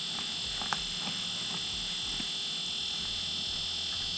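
A steady high-pitched whine made of several constant tones, with a single faint click about three quarters of a second in.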